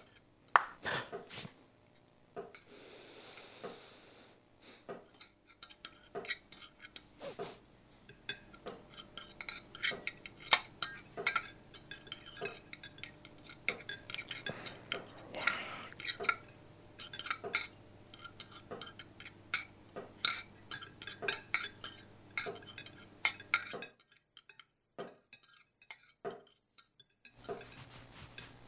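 Cutlery and dishes clinking at a dinner table: a steady scatter of small clinks and knocks of knives and forks on plates and glasses. It cuts off near the end, giving way to a few seconds of near silence and then a faint low hum.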